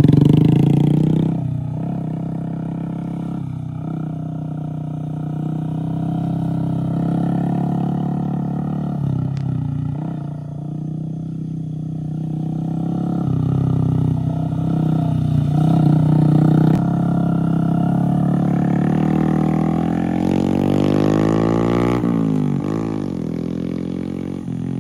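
Honda Grom's 125 cc single-cylinder engine running as the bike rides around, its note rising and falling with the throttle.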